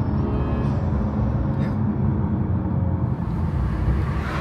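BMW 435i's N55 turbocharged inline-six, fitted with an aftermarket DCE Parts intake, running while driving, heard from inside the cabin. The engine drone eases through the middle, and a rushing hiss builds near the end.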